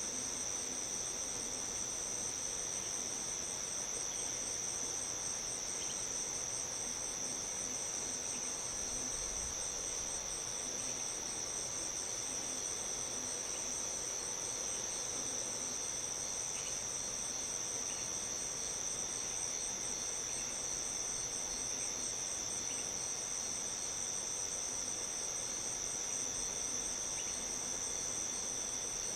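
Steady chorus of crickets and other night insects, several high trills layered together at an even level.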